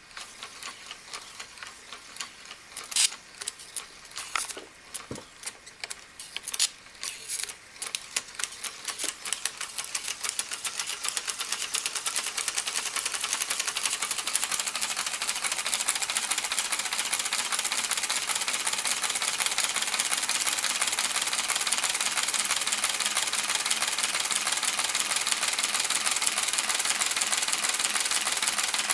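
Homemade Otis T. Carr-style saucer model spinning up. Its commutator contacts click and spark, at first as separate clicks with a few louder cracks. The clicks then quicken until, about twelve seconds in, they merge into a steady rapid rattling buzz.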